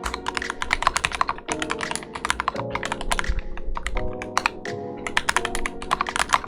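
Keychron Q8 mechanical keyboard typed on at a quick pace: a fast, uneven run of key clicks and clacks, over background music.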